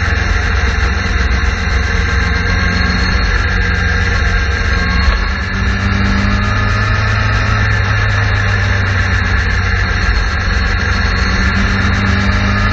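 Suzuki GSX-R sport bike's inline-four engine running at a steady cruise, heard from a camera on the fairing, with wind and road noise; the engine note shifts briefly about five seconds in.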